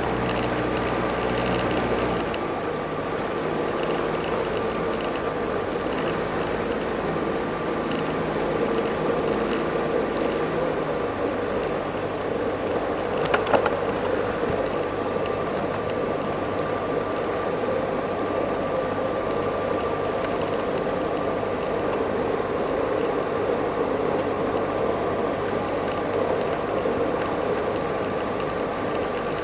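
Jabiru light aircraft's engine running at idle while the plane taxis on grass, its propeller turning slowly. The engine note changes about two seconds in, and there is one short sharp click near the middle.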